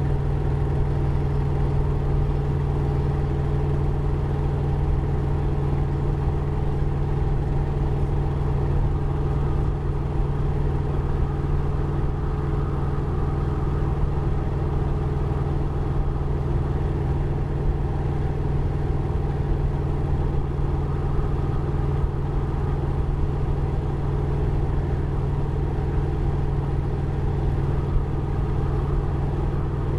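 Harley-Davidson Road Glide ST's Milwaukee-Eight 117 V-twin engine running steadily, a low even engine note with no change in pace.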